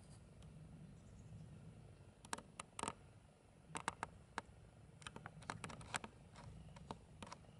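Golden jackals giving a rapid, irregular series of short, sharp squeaks and clicks as two of them meet, starting about two seconds in and stopping near the end, over a low steady rumble.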